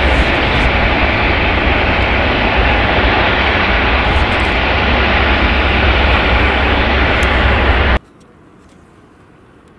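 Airbus A380's four Rolls-Royce Trent 900 jet engines running as the airliner moves along the runway: loud, steady engine noise with a deep rumble underneath. It cuts off suddenly about eight seconds in, leaving faint outdoor background noise.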